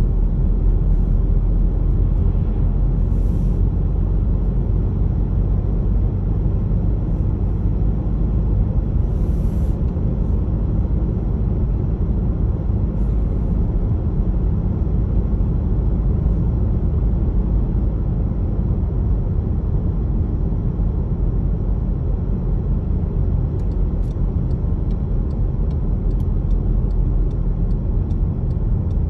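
Steady low rumble of a moving car heard from inside the cabin: tyre and engine noise while driving. Faint, evenly repeating ticks come in near the end.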